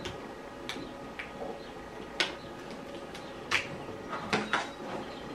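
Gloved hands tying off the neck of an inflated rubber balloon: a few short rubbing scuffs of glove on rubber, the sharpest about two seconds in and again about three and a half seconds in.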